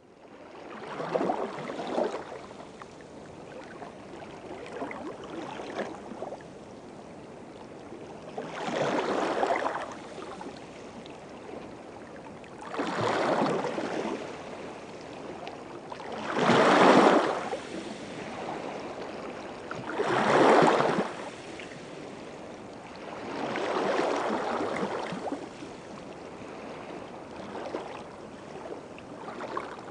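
Small waves washing in on the shore, each one swelling and falling away every three to four seconds.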